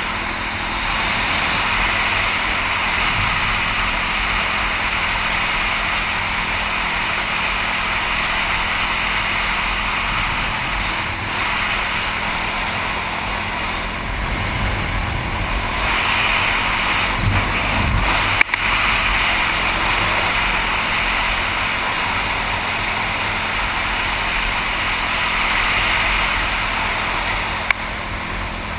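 Wind rushing over a helmet-mounted camera as a dirt bike is ridden along a paved road, with the bike's engine running underneath. A single sharp click about two thirds of the way through.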